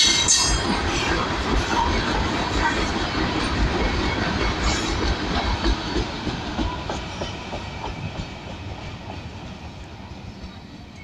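Open-top steel freight wagons rolling past on the track, a brief high wheel squeal at the start, then the wheels clattering over rail joints in a clickety-clack that fades steadily as the end of the train passes and draws away.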